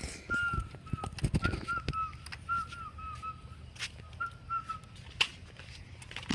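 A string of short, high whistled notes at nearly the same pitch, each with a slight upward curl, about three a second, stopping near the end. A few dull knocks and thumps come about a second in.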